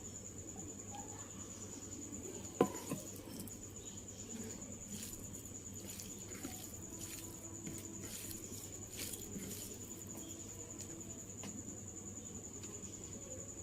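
Steady high-pitched cricket trill behind a person eating. There is one sharp click about two and a half seconds in, then a run of short crunching chewing sounds through the middle, such as papad being bitten and chewed.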